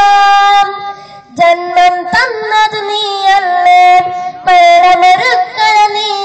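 A boy singing solo into a microphone in a high voice, opening on a long held note, then ornamented phrases with sliding, wavering turns.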